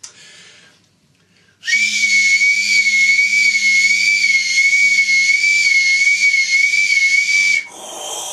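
A man imitating a dentist's drill with his mouth: a high-pitched whine with a slight wobble over a hiss, starting about a second and a half in and held for about six seconds. Near the end it cuts off abruptly into a quieter, lower sound.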